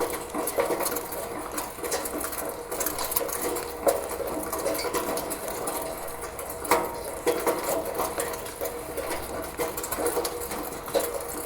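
Rain water running and trickling through a roof gutter, with a constant patter of drops and small splashes; a few louder splashes stand out.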